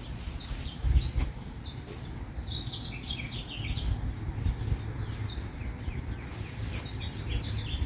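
Songbirds chirping, many short calls overlapping, over a low rumble.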